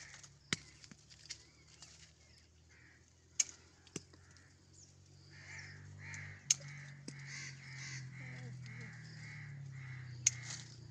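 Sharp snaps and cracks of twigs and fruit stems as malta oranges are picked by hand among the branches of the tree, a handful of them spread through. From about halfway a bird calls in a fast, even series, about three calls a second.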